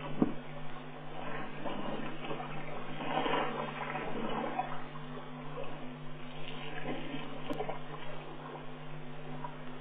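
Elephant herd drinking at a waterhole: irregular splashing and sloshing of water, swelling and fading, over a steady low hum.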